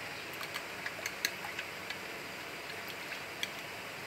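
Small metal spoon clinking lightly against a glass bowl in quick irregular ticks while stirring custard powder into a little water, over a steady background hiss.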